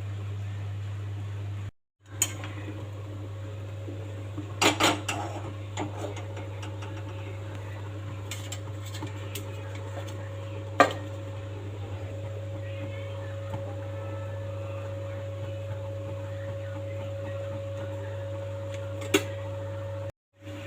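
Kitchen utensils clinking and clattering against cookware several times, with a cluster of knocks about five seconds in and single sharp clinks near eleven and nineteen seconds, over a steady low hum.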